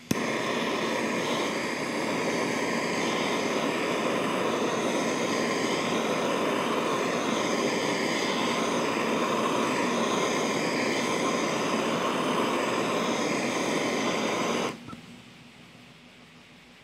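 Handheld trigger-start gas torch lighting with a click, then burning with a steady hiss as it heats a leftover piece of angular-contact bearing on a Bridgeport spindle shaft, warming it to free it from the shaft. The flame is shut off abruptly about fifteen seconds in.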